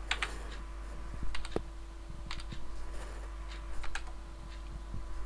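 Computer keyboard keys being typed in short, irregular clusters of clicks, over a faint steady hum.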